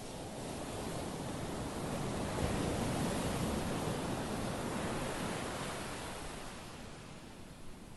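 Ocean surf: a wave swells to a rush about three seconds in, then slowly fades away.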